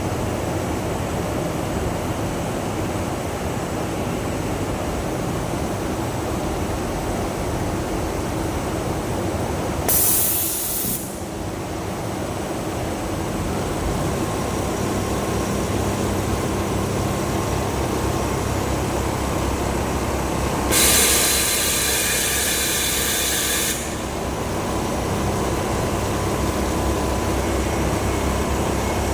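Automatic duvet sewing machine running with a steady mechanical hum, broken twice by a loud burst of hiss: about ten seconds in for about a second, and about twenty-one seconds in for about three seconds.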